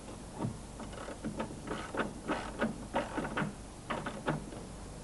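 Socket wrench on a long extension turning the hex-head bolt that adjusts a Mk1 VW Golf Cabriolet's rear side window lengthwise: a run of irregular metallic clicks, about three a second, stopping about four and a half seconds in.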